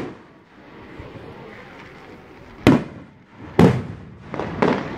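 Aerial firework shells bursting: four sharp booms in the second half, the last two close together, each trailing off quickly.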